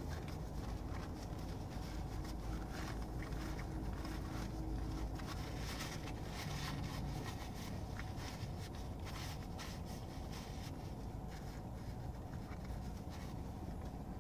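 Biting into and chewing a cheeseburger, with scattered crinkles of its paper wrapper, over a steady low hum inside a car.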